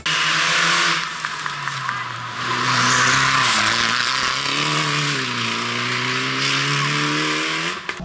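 Fiat Egea rally car's 1.4 T-Jet turbocharged four-cylinder engine working on and off the throttle through a gravel corner. Its note climbs about three seconds in, sags, and climbs sharply near the end, under a loud hiss of tyres and thrown gravel.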